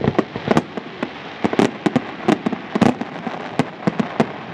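Aerial fireworks shells bursting in a rapid, irregular string of sharp bangs over a steady hiss, the bangs stopping near the end.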